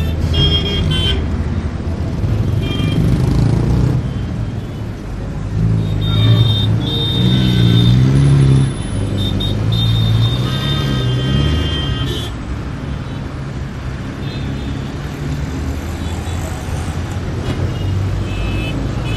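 Road traffic with engines running past and car horns tooting several times, two of them long and overlapping in the middle.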